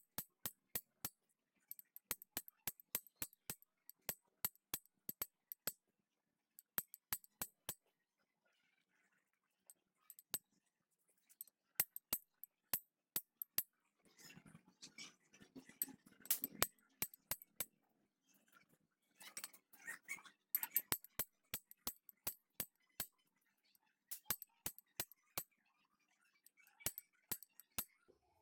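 Metal-on-metal knocks as a bent steel bar strikes the head of a manual impact driver. The blows come in runs of two or three a second with short pauses, with some scraping handling noise in between. Each blow shock-turns the driver's bit to break loose a rounded, stripped screw on a motorcycle disc brake reservoir.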